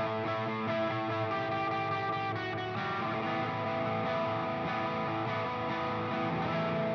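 Fender short-scale electric guitar with P90 pickups, played with held, ringing notes and chords. It goes through a pedal chain and amp simulation, with compression and reverb on.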